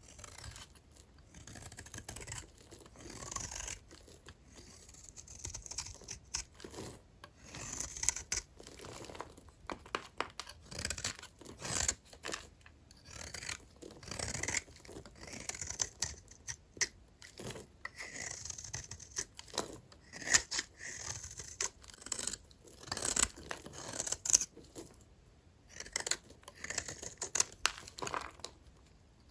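Dry vintage hotel soap being cut with a knife: a long run of crisp, scratchy crunching strokes and sharp clicks at an irregular pace.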